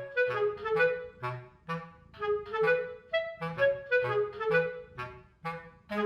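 Background music: a light tune of short, separate notes with a woodwind-like lead over a bass line.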